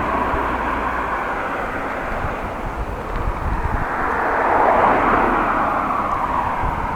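Road traffic passing: the tyre-and-engine noise of a vehicle swells to its loudest about five seconds in and fades away, over wind rumbling on the microphone.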